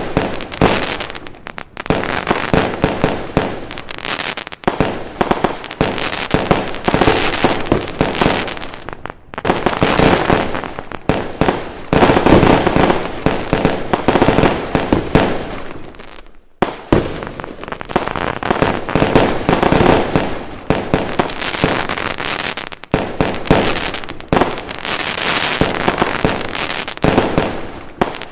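Fireworks and firecrackers going off in rapid, continuous volleys of bangs and crackling, with a few brief lulls.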